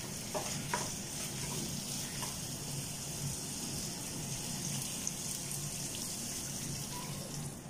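A glass of water poured into a hot pan of frying beef and spiced masala, splashing over a steady sizzle, with a few light taps of a wooden spatula about the first second.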